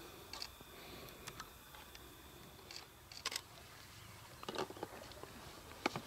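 Quiet night bush ambience: a faint steady high insect trill that fades about halfway through, with scattered soft clicks and ticks.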